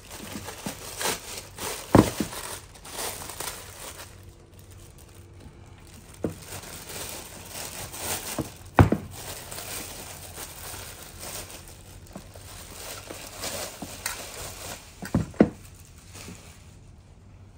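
Plastic wrapping crinkling and rustling as it is pulled off a hydraulic hand pump, with a few sharp knocks as the pump is handled on the bench.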